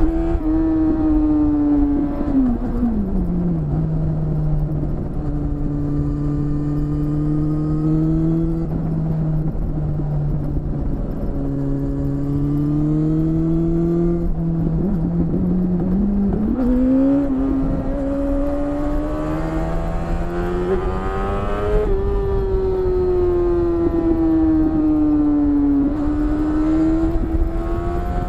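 BMW S1000RR's inline-four engine running under way, heard from on the bike with wind rush underneath. The revs drop about two seconds in and hold low and fairly steady, climb again around sixteen seconds, then rise and fall in long sweeps.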